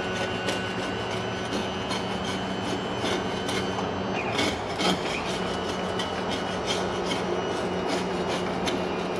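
Electric-hydraulic power trim pump on a MerCruiser Alpha One sterndrive running with a steady hum, stopping about four and a half seconds in and starting again about half a second later, which is typical of trimming the drive one way and then the other. Many sharp clicks and a rough rubbing noise run under the hum.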